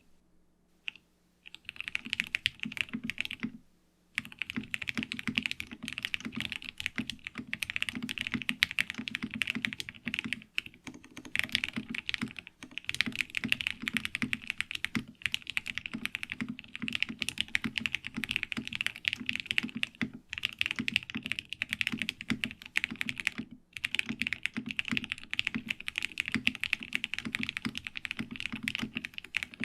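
Fast, continuous typing on a Frog TKL mechanical keyboard with Gateron Ink Black V2 linear switches, an FR4 half plate and PBT keycaps: a steady stream of key clacks. It starts about a second and a half in, with short pauses around four seconds and near the three-quarter mark.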